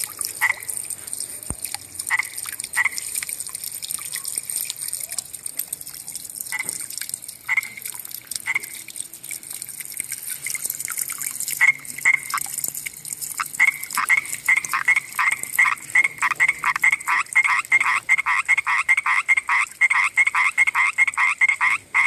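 Common tree frog calling with short croaking notes, scattered at first, then from a little past halfway a fast, even run of about four notes a second. A steady high chirring of insects runs underneath.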